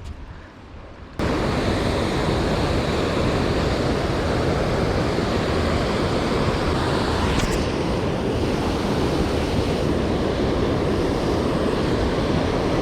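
Fast river current rushing steadily over rocks, a loud even wash of water noise that starts suddenly about a second in.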